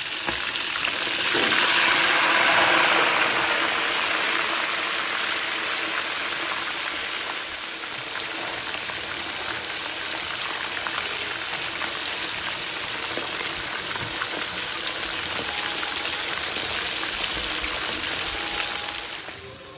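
Hot oil sizzling as a whole fish is slid into a pan, swelling for a few seconds as it goes in, then settling to the steady hiss of deep-frying. It stops near the end.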